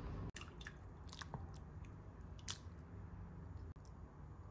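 Metal ladle serving beef stew into a glass bowl: faint wet slopping and squelching of broth and soft meat pieces, with a few small clicks.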